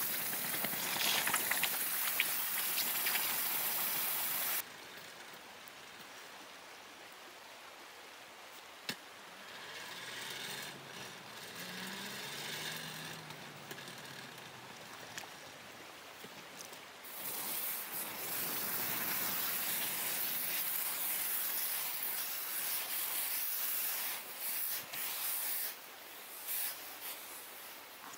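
Forge blower driving air into a charcoal hearth fire, a loud steady hissing rush. It cuts off abruptly about four and a half seconds in and starts again after about seventeen seconds, briefly stopping and starting near the end.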